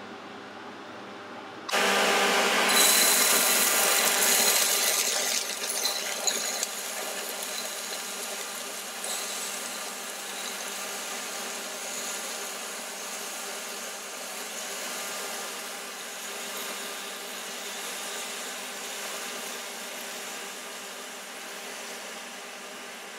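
Cubes of raw beef hit hot oil in a nonstick pan and sizzle loudly all at once, about two seconds in: searing the meat for a stew. The sizzle eases after a few seconds to a steady frying sizzle as the pieces are stirred.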